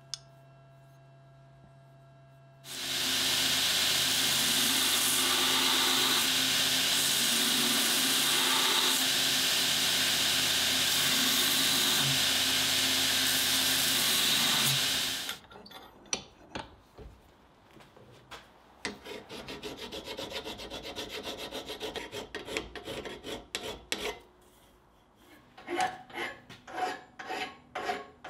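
A belt grinder grinding a forged steel nutcracker, a loud steady grinding noise that starts about three seconds in and stops about halfway through. After it come rhythmic hand-file strokes on the steel, growing louder and more spaced near the end.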